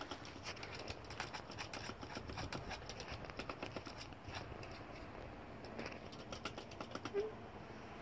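A small puppy's claws tapping and scratching against a glass door pane in quick faint clicks, thinning out after about four seconds, with one short squeak about seven seconds in.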